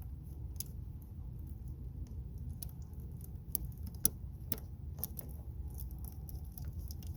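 Scattered light metallic clicks and clinks of small battery-terminal hardware and hand tools being handled, the sharpest about four seconds in, over a low steady rumble.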